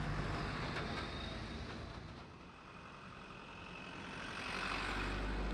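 Steady rushing roar of a muddy flash flood in spate. It dips quieter a couple of seconds in, then swells again with a deep rumble near the end.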